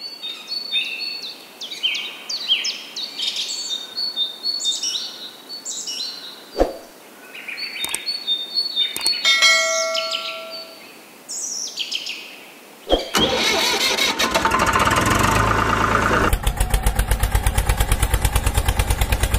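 Small birds chirping and calling, with a few sharp clicks. About two-thirds of the way in, a loud engine-like running sound starts abruptly and settles into a fast, even pulsing near the end.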